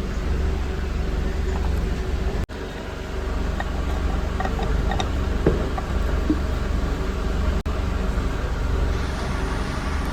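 Royal Enfield Bullet 350's single-cylinder engine running steadily while riding, with road and traffic noise around it.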